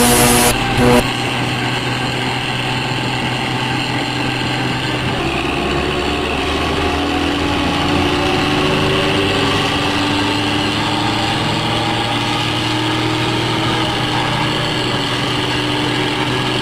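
Engine idling steadily with a deep rumble. A louder burst ends about a second in.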